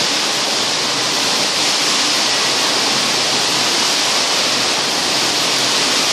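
Steady, loud rushing hiss of running industrial machinery in a factory hall, even throughout with no knocks or breaks.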